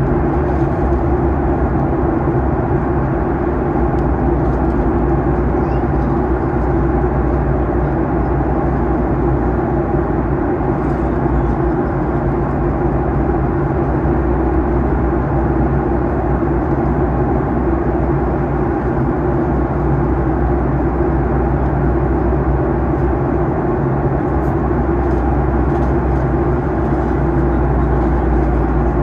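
Steady in-flight cabin noise of a Boeing 737-800 during descent: an even rush of air with a steady hum from its CFM56 engines.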